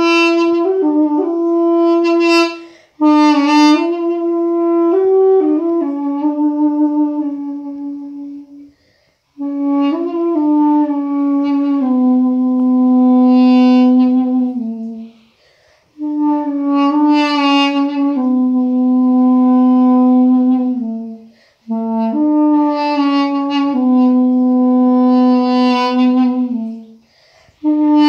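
Armenian duduk played solo in a slow melody of long held notes. Each phrase sinks to a sustained low note, with a short breath-gap between phrases.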